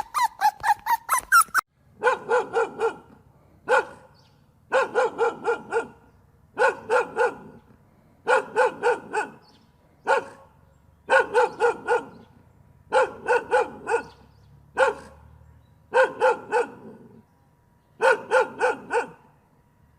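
A dog barking in rapid bursts of three to five barks, the bursts coming about every two seconds with a few single barks between. It opens with a quick run of high, pitch-bending yips in the first second and a half.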